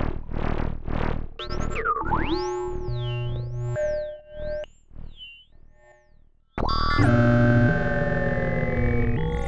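Eurorack modular synthesizer patch on a Make Noise New Universal Skiff System. A run of pulsing notes gives way to a high tone swooping up and down, which fades almost to silence. About two-thirds of the way in, a loud sustained chord cuts in suddenly, with one tone slowly gliding upward.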